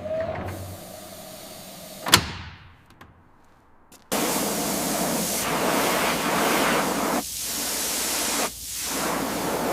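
A single sharp knock, then a steady hissing rush that starts suddenly about four seconds in and cuts out briefly twice near the end.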